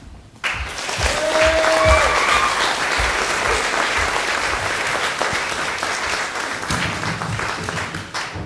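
Audience applause breaking out suddenly just after a song ends, with a held cheer rising above it about a second in; the clapping fades away near the end.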